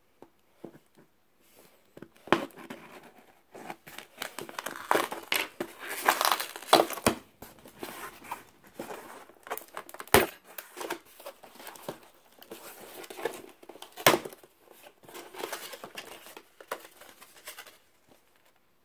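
Laptop packaging being handled as the retail box is opened: irregular crinkling and tearing of wrapping, with three sharp knocks against the box.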